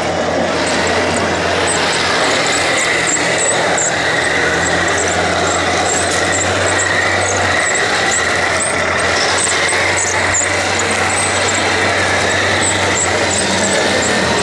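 1/16-scale radio-controlled model tanks running: a steady mechanical drone with a held high whine, a low hum and quick high chirps repeating several times a second.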